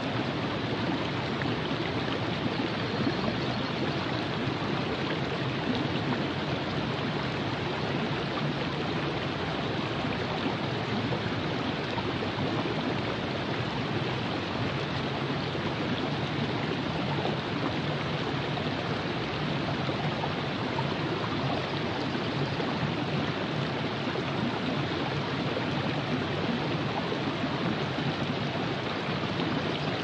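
The Virgin River flowing, a steady, unbroken rush of running water.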